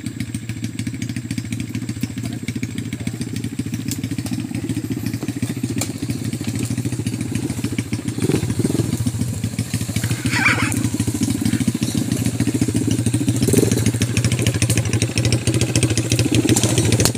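Small ATV (quad bike) engine running steadily as the quad climbs a dirt trail, growing louder as it approaches.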